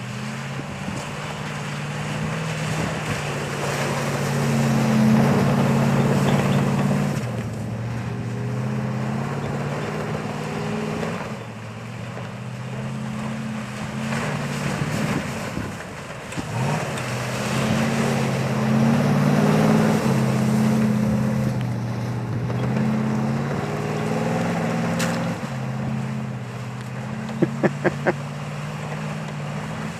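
Nissan Titan pickup's V8 revving up and down again and again as the truck works through snow, with a steady rush of tyre and wind noise. Four quick clicks come near the end.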